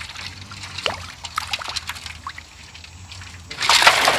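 Water sloshing and splashing as goby and tilapia are rubbed clean by hand in a metal basin, then a loud gush about three and a half seconds in as the muddy water is tipped out over the rim.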